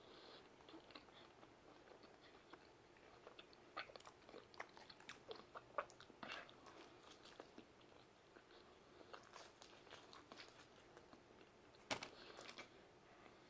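Faint close-up chewing of a bite of pizza: wet mouth smacks and small clicks in two bursts, the sharpest near the end.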